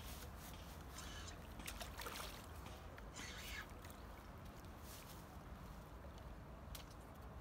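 A hooked wels catfish splashing at the surface at the water's edge, in a few short bursts about one, two and three seconds in and again near the end, over a steady low rumble.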